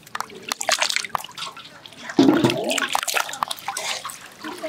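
Hands washing cut hilsa fish pieces in a large metal tray of water: irregular splashing and sloshing as the pieces are lifted and stirred.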